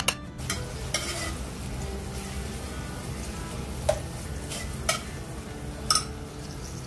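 Sliced onions sizzling in oil in an aluminium pot while a metal slotted spoon stirs them, knocking and scraping against the pot in sharp clicks, about once a second near the end.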